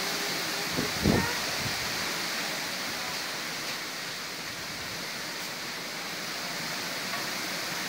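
Strong gale blowing through trees and across the microphone, a steady rushing noise with one hard low buffet from a gust about a second in.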